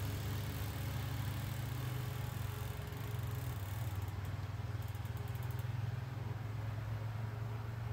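An engine running steadily with a low hum, like a motor vehicle idling. A brief run of faint, quick ticks comes about five seconds in.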